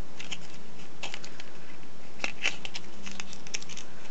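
Thin gold foil chocolate-coin wrapper crinkling as fingers pinch and press its folds, a run of small irregular crackles.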